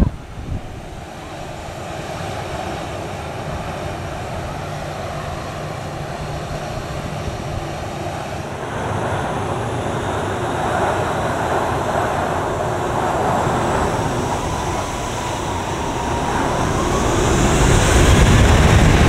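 Jet airliner engines running with a broad rushing noise that slowly grows louder. A turbine whine rises in pitch over the last few seconds as the engines spool up.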